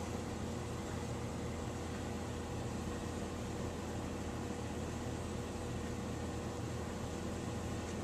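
Steady room tone: a constant low hum and hiss with a faint steady tone above it, unchanging throughout.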